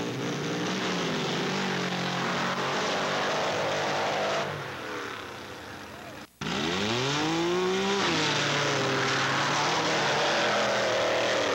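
Hill-climb vehicle engine running hard under load as it climbs a steep hill. About six seconds in the sound cuts out briefly, then an engine revs sharply up and settles at high revs.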